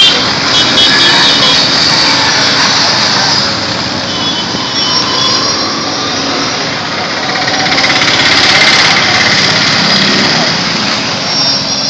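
A stream of motorcycles riding past one after another, their small engines running. The sound swells to its loudest about eight to nine seconds in as one passes close.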